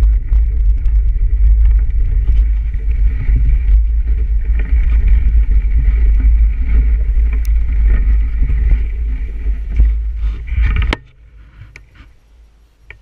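Bicycle ridden over a snowy path: wind buffeting the handlebar camera's microphone, with tyre noise and rattles. Near the end it stops abruptly, leaving only a few faint clicks and knocks.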